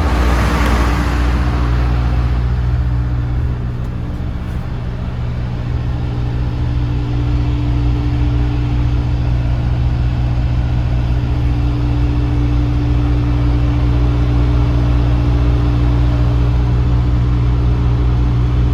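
Diesel engine of a DAF CF290 truck idling steadily. A brief rushing noise comes at the start and fades within about two seconds.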